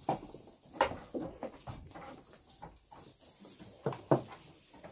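Goats crowding at a wooden grain feeder, with short goat calls and brief sharp sounds from the scrum. The loudest are two close together near the end.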